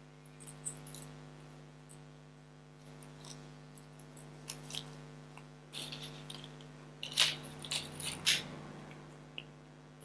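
Small crinkling and clicking handling noises as green florist tape is wrapped around a wire stem to bind on sugar flowers, loudest in a cluster about seven to eight seconds in, over a steady low electrical hum.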